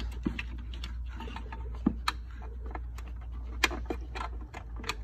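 Irregular clicks and light plastic knocks of a wiring-harness plug being handled and pushed into its socket on an EZGO TXT PDS golf cart's controller, the sharpest clicks a little under 2 s and a little over 3.5 s in.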